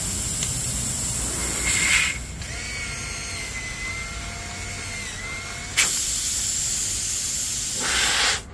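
Loud hiss of escaping air for about two seconds. Then a cordless drill whirs for nearly four seconds while it is held to the tread of the punctured tyre. Then the loud air hiss returns and cuts off abruptly near the end.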